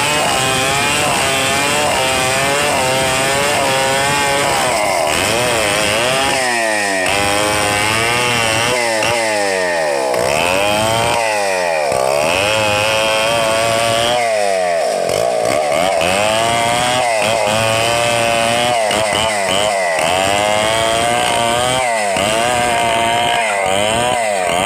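Stihl 070 two-stroke chainsaw ripping a log lengthwise into planks, running at high revs under load. Its pitch wavers and swings up and down again and again as the cut loads and frees the engine.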